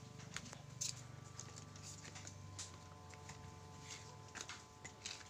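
Faint footsteps and scattered light clicks of someone walking in sandals, over a low steady hum.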